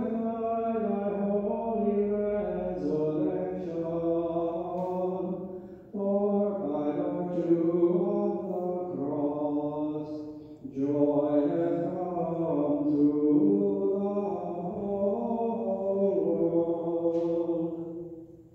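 Unaccompanied sung chant: one voice holding slow, sustained notes in three long phrases, the last one fading out at the end.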